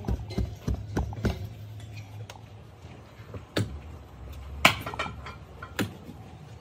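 Knocks of tools on metal: a quick run of about three knocks a second, then a few separate, sharper clanks, the loudest one ringing briefly.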